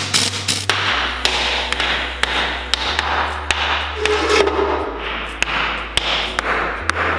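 A hammer striking the metal housing of an old Tatra truck's drivetrain: a run of sharp, irregular blows, metal on metal.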